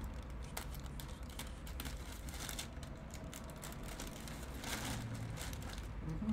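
Plastic mailer bag crinkling and rustling in the hands while a small craft knife slits it open, with irregular scratchy crackles as the blade cuts the film.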